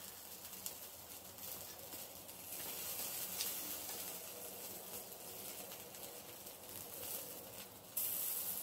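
Sausages sizzling on a wire grill over barbecue coals, a steady hiss that swells near the end, with a few light clicks of metal tongs against the grill.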